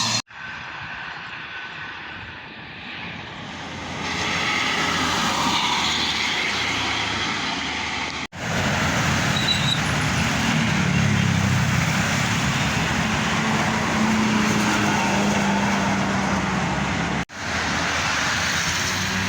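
Buses and highway traffic passing at speed: a steady rush of tyre and engine noise that swells as a vehicle goes by. It comes in three short clips, each ending in an abrupt cut.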